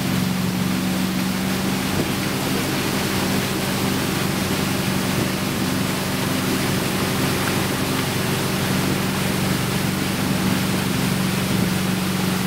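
Malibu tow boat's engine running steadily at towing speed, a constant low hum, over the rush of churning water from its wake.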